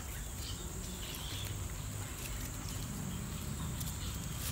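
Insects, likely crickets, chirring steadily in a high thin tone, with faint rustles and light clicks of leaves and twigs as hands work through a bonsai's branches.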